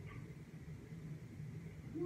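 Quiet room tone: a faint, steady low hum with no distinct event.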